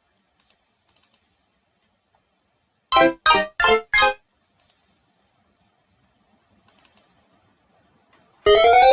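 Retro video-game sound effects played back: four quick pitched synth blips about three seconds in, then near the end a rising synth sweep, with a few faint clicks between them.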